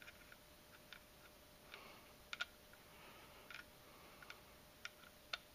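Faint, irregular small clicks of metal parts, about ten of them, as the loose grip safety of a 1911 pistol is worked in the frame with the thumb safety removed.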